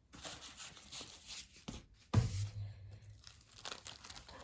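Plastic wrapper crinkling and rustling as a rolled diamond-painting canvas is worked back into it, with a sharp thump about two seconds in.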